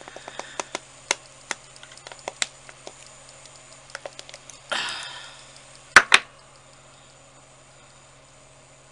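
Light clicks and taps of small hard objects being handled on a work surface, a short rustle about five seconds in, then two sharp clacks about six seconds in, over a steady low hum.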